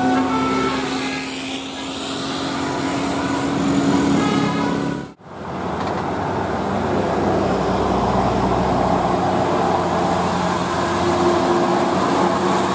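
Large bus engine running as it drives by amid road traffic, with a steady low drone through the first four seconds. The sound cuts out abruptly about five seconds in and picks up again as engine and road noise.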